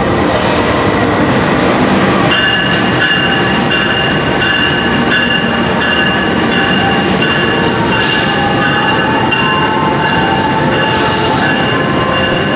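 Diesel-electric locomotive hauling a passenger train past, its engine running as it goes by, then the coaches rolling along the rails. From about two seconds in, high-pitched squealing tones from the wheels come and go over the rolling noise.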